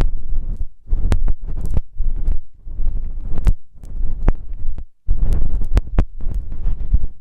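Close rubbing and scratching right on a microphone, typical of ASMR ear massage: low, muffled swells coming every half second or so, with sharp crackling clicks scattered through them.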